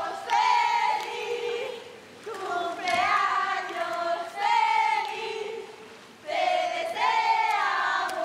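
A group of women singing a birthday song together, in loud phrases of about a second each with short breaks between them.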